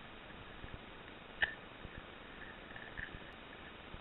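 Airsoft shots: two sharp clicks about a second and a half apart over low handling noise, muffled by a waterproof camera cap.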